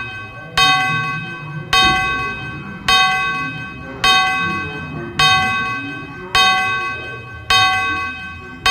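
A bell struck at an even pace, a little under once a second, each strike ringing the same note and fading before the next.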